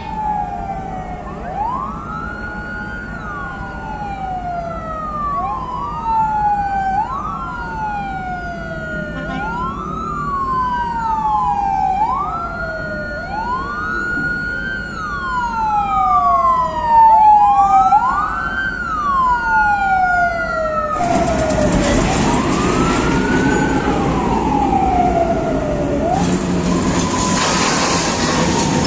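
Vehicle siren wailing, rising and falling every two to three seconds in overlapping cycles. About two-thirds of the way in, a loud rushing noise cuts in abruptly and grows louder near the end, while the wail fades out.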